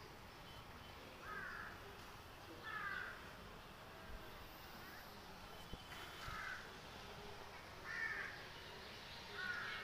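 A crow cawing, five short caws spaced a second or more apart.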